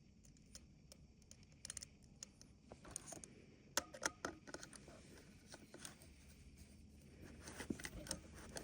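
Faint scattered clicks and scratches of hands working a stripped wire into a fire alarm's terminal. The loudest cluster of clicks comes a little before the middle, with a few more near the end.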